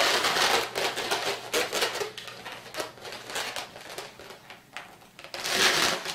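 Inflated latex modelling balloons rubbing against each other and against the hands as the twisted segments are pressed into place: irregular scratchy rustles, loudest near the end.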